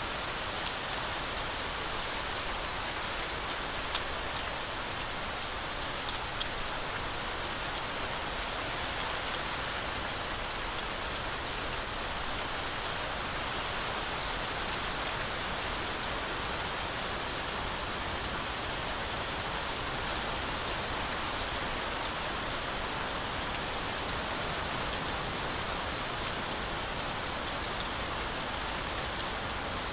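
Heavy rain falling steadily through a forest canopy, an even hiss of rainfall with a few sharper drop ticks.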